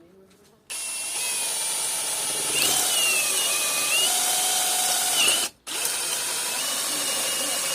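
Hammer drill boring into soft brick in plain rotary mode, hammer function off. It starts under a second in and runs with its whine wavering up and down in the middle, stops briefly about five and a half seconds in, then runs steadily again.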